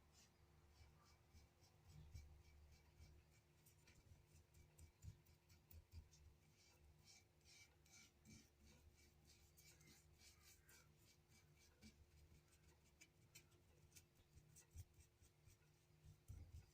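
Faint, quick scratchy rubbing strokes on metal as cold bluing solution is worked onto the footpump's steel, in many short, uneven strokes.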